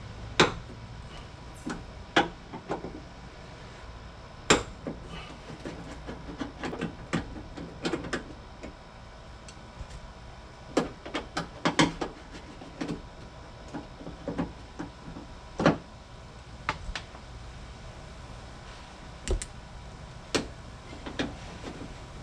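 Irregular clicks, knocks and small metallic clunks from a screwdriver and metal latch parts as the tight Phillips screws holding the Honda Pilot's liftgate latch are worked loose and the latch assembly is removed.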